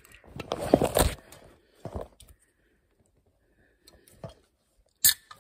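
Fumbling at an aluminium soda can's ring pull: a fingernail scrapes and clicks against the tab along with handling rustle, in a few short spells. A sharp click comes near the end.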